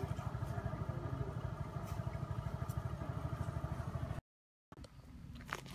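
A small engine idling steadily with a fast, even throb. It cuts off suddenly about four seconds in, leaving quieter outdoor background with a few light clicks.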